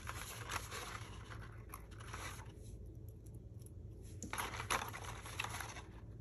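Faint rustling and light scraping of cardstock, with a few small clicks, as metal tweezers work a brad into a hole in the paper. It goes quieter for a moment in the middle, over a steady low hum.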